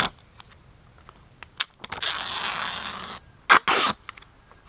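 A GoPro being fastened onto a shoe: a few sharp clicks, then a rasping noise about a second long, followed by two short rasping bursts.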